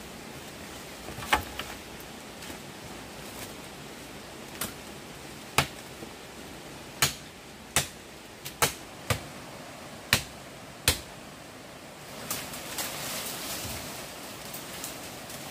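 About ten sharp knocks at uneven intervals, some close together, followed near the end by a couple of seconds of rustling.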